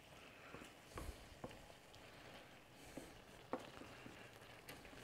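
Wooden spatula stirring a pan of simmering chicken curry with rice, faint: soft squishing of the food and about four light knocks of the spatula against the pan.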